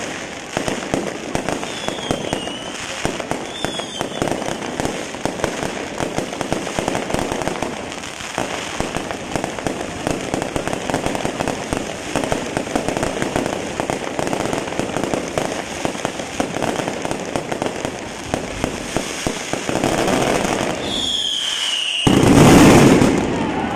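A fireworks castillo: a dense, continuous crackle of rapid bangs, with a few short falling whistles. Its loudest, densest burst comes near the end.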